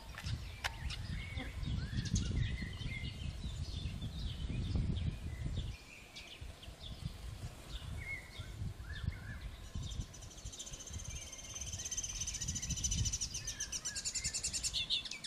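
Small songbirds calling with short, scattered high chirps over a low rumble that stops about six seconds in. From about ten seconds in, a bird sings a fast, evenly repeated trill lasting several seconds.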